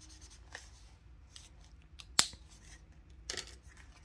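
Desk handling of a pen and a paper savings challenge sheet: a few light clicks, one sharp click about two seconds in, and a short rustle of the paper near the end.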